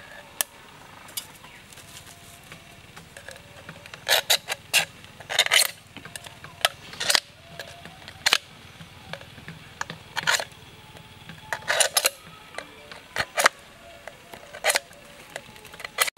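Knife blade cutting and scraping into an aluminium soda can: an irregular run of sharp metallic clicks and short scrapes, starting about four seconds in.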